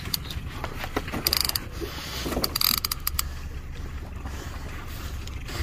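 Fishing reel's ratchet clicking in short bursts, about a second and a half and two and a half to three seconds in, over a steady low rumble; a porbeagle shark is on the line.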